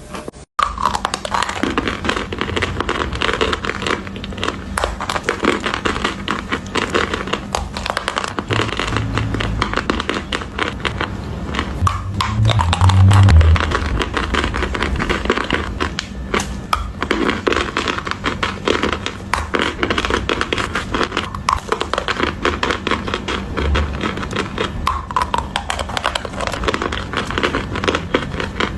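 Close-miked crunching of gym chalk being bitten and chewed: a dense run of dry, crisp cracks, with a louder, deeper stretch of chewing about twelve seconds in.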